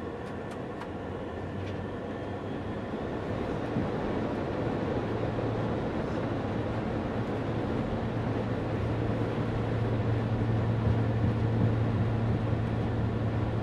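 An Airbus A400M's four TP400-D6 turboprop engines at takeoff power, heard from inside the cockpit during the takeoff run. A steady drone grows slowly louder, and a strong low hum comes in about five seconds in. A few light clicks sound near the start.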